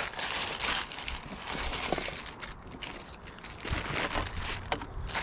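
Clear plastic bags of small parts crinkling and rustling irregularly as they are handled and opened.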